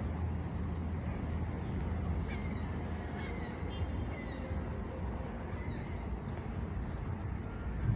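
Steady low drone of the Dorothy Ann/Pathfinder tug-barge's engines as it passes along the river. About four short falling bird chirps come through in the middle.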